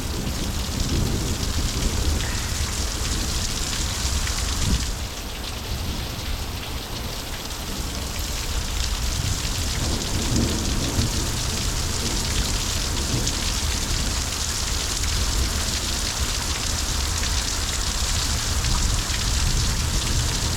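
Heavy thunderstorm rain pouring steadily, with a low rumble of thunder underneath.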